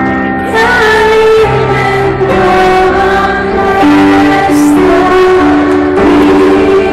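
Live pop band playing, with a woman singing long held notes over acoustic guitar and the band.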